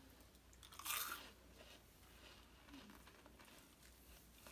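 A single short crunch about a second in, a bite into a crisp chocolate wafer bite, followed by faint small clicks and rustles.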